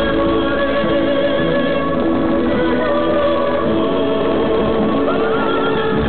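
Music from the fountain show, with a singing voice holding long, wavering notes over the accompaniment.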